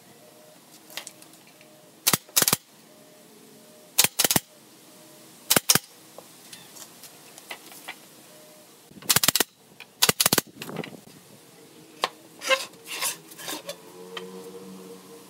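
Pneumatic nail gun firing nails into pine slats, sharp shots mostly in quick pairs a couple of seconds apart, with a quick cluster in the middle and softer shots near the end.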